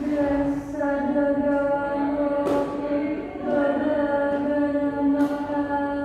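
Buddhist paritta chanting in a woman's voice, recited on one steady note in phrases that break about once a second, with hissing consonants now and then.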